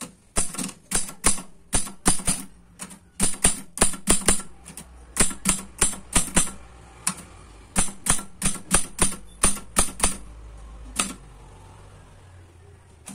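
Welco 280 De Luxe manual typewriter being typed on: sharp type-bar strikes come in quick, irregular runs with short pauses. They stop about ten seconds in, followed by a single strike about a second later. The machine still works.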